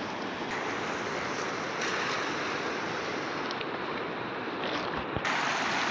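Fast, shallow river rushing over stones: a steady wash of flowing water, with a single dull thump about five seconds in.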